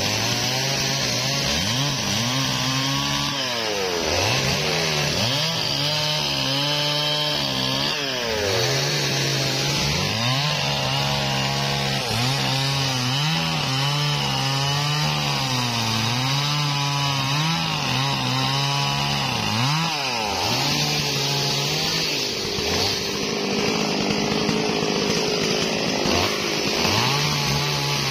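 Stihl MS 440 two-stroke chainsaw at high revs crosscutting a durian log, the engine note repeatedly sagging and climbing back as the chain bites into the wood and comes free.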